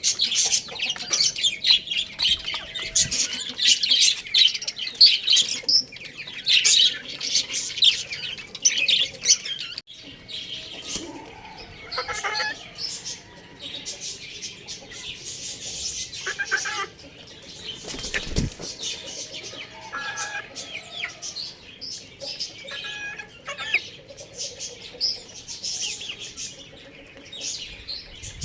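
Small birds chirping in a dense, rapid chatter that thins out after about ten seconds to scattered calls, with one sharp knock about two thirds of the way through.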